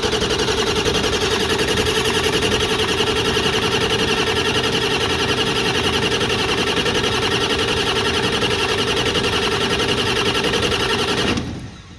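Ford 7.3L Powerstroke V8 turbodiesel cranking on the starter without firing, a steady fast pulsing that stops about eleven seconds in. This is a crank-no-start: the high-pressure oil pump reads only about 200 on the gauge while cranking, so it cannot build the pressure the injectors need.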